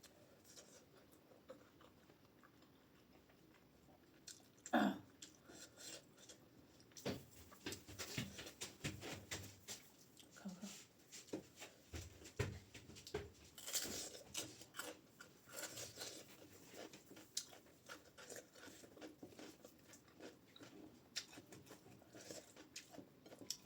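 Close-up eating sounds: a person chewing mouthfuls of rice, dal and potatoes, with many small wet clicks and smacks of the mouth. One louder short mouth sound comes about five seconds in.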